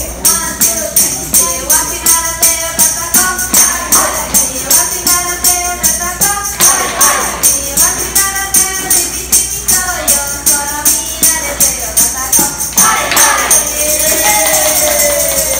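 Restaurant staff singing a celebration song while beating large jingle tambourines in a steady beat of about two strikes a second, with hands clapping along. Near the end the beat stops and a held sung note slides down in pitch.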